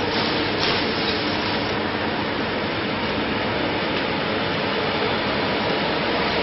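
Ventilation fans and air ducting of an indoor cannabis grow room running, a steady rushing of air with a faint hum underneath.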